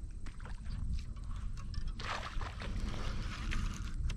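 Shallow pond water splashing and sloshing, denser from about two seconds in, over a steady low rumble of wind on the microphone.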